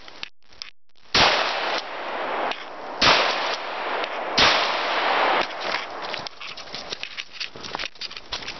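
Three AR-15 rifle shots, about two seconds and then a second and a half apart, each with a long echoing tail.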